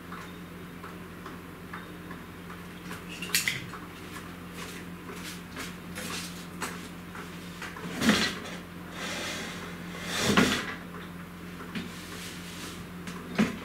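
Room noise: a steady low hum with scattered knocks, clinks and brief rustling of things being moved about, loudest around the middle.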